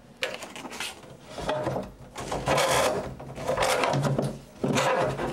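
Corrugated plastic drain hose and supply line being pushed through a drilled hole in a wooden cabinet side, scraping and rubbing against the edge of the hole in a few rough stretches, loudest from about two to three seconds in.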